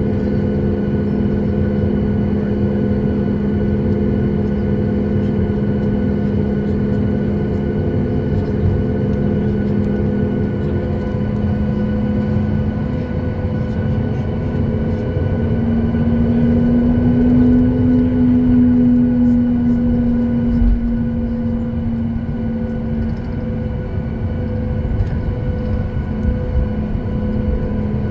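Boeing 737 MAX 8 taxiing, heard inside the cabin: a steady low drone of its CFM LEAP-1B engines at taxi power, with a hum that rises slightly in pitch about halfway through and then settles back. One short low thump comes about two-thirds of the way in.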